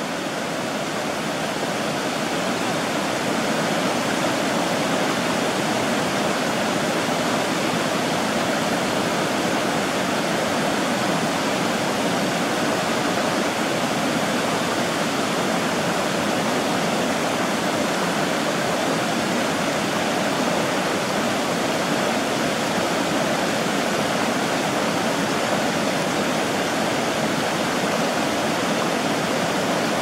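Water pouring over a low river weir and rushing across a shallow, stony bed in a steady roar of white noise. It grows slightly louder over the first few seconds, then holds even.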